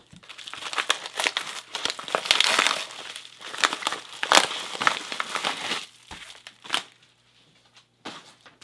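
Plastic packaging being unwrapped by hand, with dense irregular crinkling and crackling that dies down for about a second near the end.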